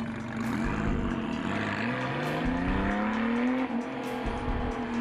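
Car engine accelerating, rising steadily in pitch for about two seconds, then falling back about three and a half seconds in.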